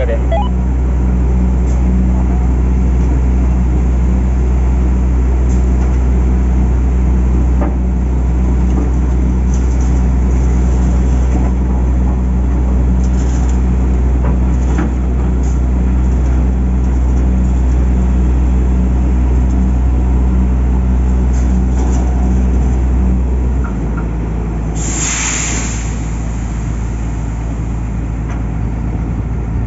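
Diesel engine of heavy shipyard machinery running steadily at a low drone, its note dropping about three-quarters of the way through, with a short hiss a second after.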